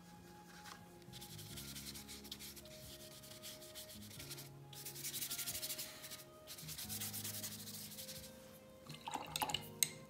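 Paintbrush scrubbing acrylic paint onto paper in repeated strokes, a dry scratchy rubbing that comes and goes and is loudest about five seconds in. Soft background music with held notes runs underneath.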